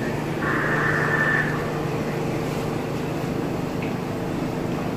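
A New York City subway train standing at the platform with its doors open, its equipment giving a steady low hum. About half a second in there is a brief, higher hissing sound lasting about a second.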